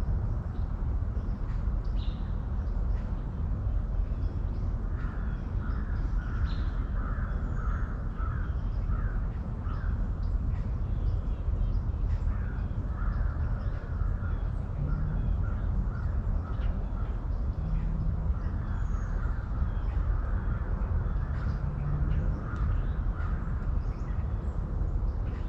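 Crows cawing in repeated runs of short calls over a steady low rumble of outdoor ambience.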